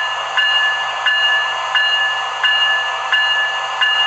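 Electronic bell effect from the sound system of an MTH O-scale Swiss Crocodile model locomotive, ringing steadily with about three strikes every two seconds over a steady background hiss. It is an American-style bell that the owner doesn't think the real European locomotives had.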